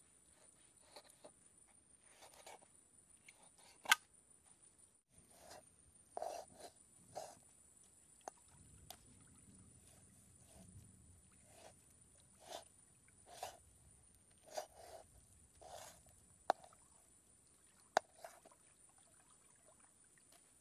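Machete blade slicing raw pork belly on a wooden block: irregular soft knocks of the blade through the meat into the wood, every second or so, with a few sharp clicks.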